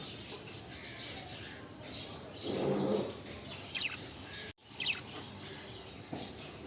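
Pet budgerigars chirping and chattering, with a brief louder low rustle about two and a half seconds in.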